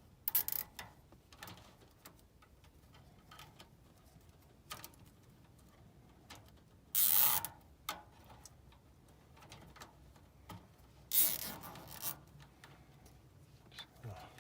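Hands working wires at a furnace control board: scattered small clicks with three short, louder rasping bursts, one right at the start, one about halfway through and one near the end.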